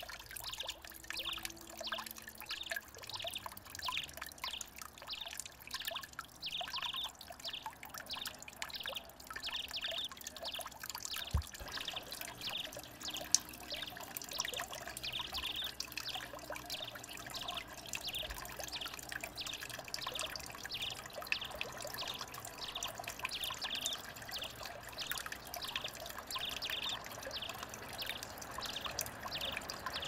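Water trickling down the steps of a small rock garden water feature, with splashing as sparrows bathe in its shallow pools, and a sharp splash or knock about 11 seconds in.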